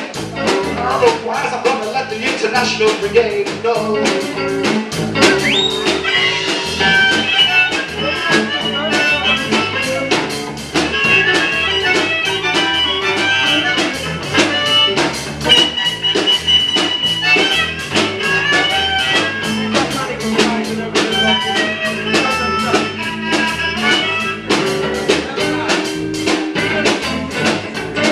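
Live band playing an instrumental passage: acoustic and electric guitars over a steady drum beat, with a lead line of quick high notes from about six seconds in.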